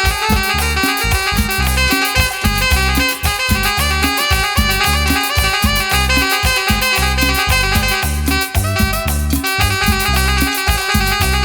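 Tropical dance band playing an instrumental passage with a steady beat: pulsing bass, busy percussion and brass-like melody lines, no singing.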